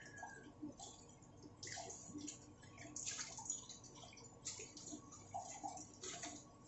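Ramyun noodles in broth simmering in a stainless-steel pan, faint irregular bubbling and popping.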